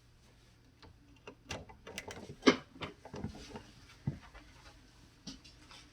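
Scattered metal clicks and knocks as a China-made Craftsman 1/4-inch ratchet is fitted to a digital torque meter and strained by hand, the loudest knock about two and a half seconds in.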